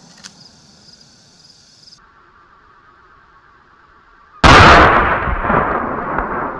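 A single shot from a Marlin 1895 lever-action rifle in .45-70 Government, fired into a stack of fir boards: one sharp, very loud report near the end, followed by a long rolling echo that fades over about two seconds.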